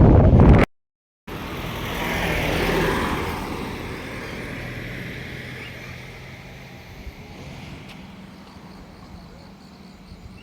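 Wind rumbling on the microphone, cut off abruptly about half a second in. Then a motor vehicle's sound, with a steady low hum, swells to a peak two to three seconds in and slowly fades away, as a vehicle passing by would.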